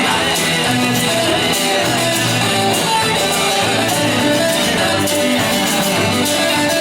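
Rock band playing live: an instrumental passage between sung verses, led by guitar over a steady beat.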